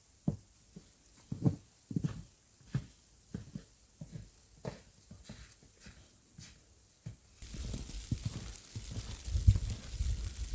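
Irregular soft knocks and thumps, about two a second. About seven seconds in, they give way abruptly to a steady hiss with heavier low thumps.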